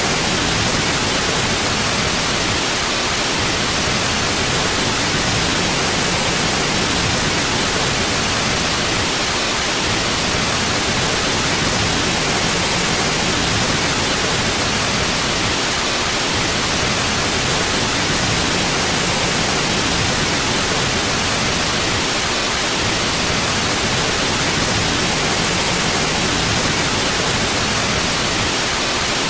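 Steady white noise: an even, unchanging hiss across the whole range of pitch.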